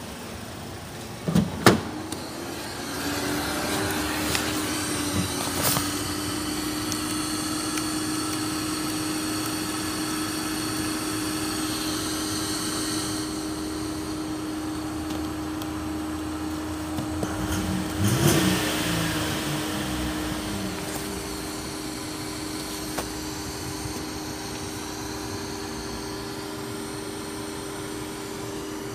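Holden Commodore 3.6-litre V6 running steadily at idle, heard from inside the cabin with a constant hum. A car door thuds twice about a second and a half in, and there is a brief louder swell about 18 seconds in.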